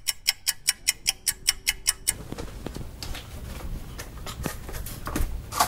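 Rapid, even ticking, about six ticks a second, stops about two seconds in. Soft scattered taps and rustling follow as shoes step across an entryway floor.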